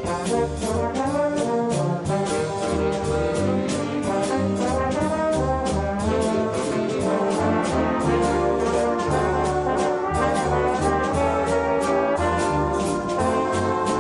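Big band playing a waltz, the trombone section to the fore with saxophones and trumpets, over a steady drum beat.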